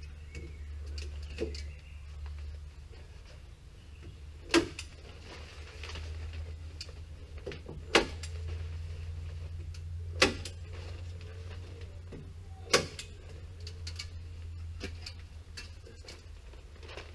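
Staple gun firing four sharp single snaps a few seconds apart as a membrane sheet is fixed to the timber porch frame, with a few fainter clicks between them, over a steady low hum.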